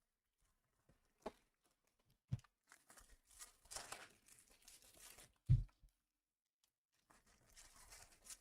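Foil trading card pack being torn open and crinkled, in two stretches of rustling, with three soft thumps on the table, the loudest about five and a half seconds in.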